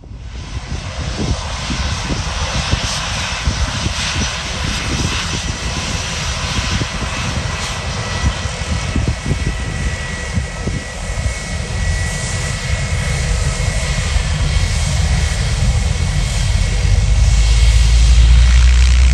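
Airliner engines running: a broad, steady engine noise with a faint high whine and a gusty low rumble, starting abruptly and growing much louder over the last couple of seconds as the aircraft comes closer.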